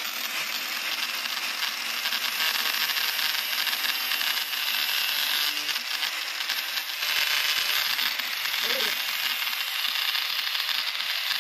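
Angle grinder spinning a paper disc, about six sheets thick, pressed against a rusty steel rod: a steady grinding noise. The paper cannot cut the steel, and the disc is wearing itself away against it.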